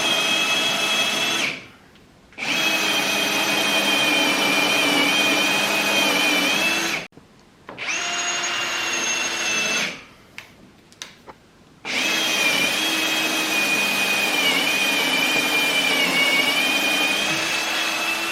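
Electric drill boring a hole through a hard hickory-wrapped beam, running in four bursts with short pauses between. Its whine wavers and dips in pitch as the bit works through the hard wood.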